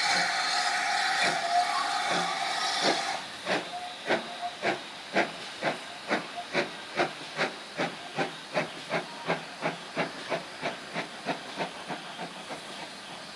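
LMS Black Five steam locomotive pulling away: loud hissing steam with a steady whistle tone for about the first three seconds, then the exhaust chuffs begin, slow at first and quickening to about three a second as they fade into the distance.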